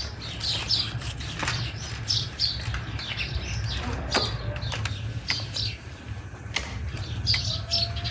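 Small birds chirping in short repeated calls, with scattered sharp clicks and a steady low rumble underneath.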